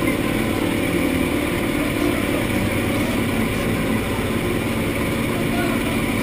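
Steady drone of a propeller aircraft's engine.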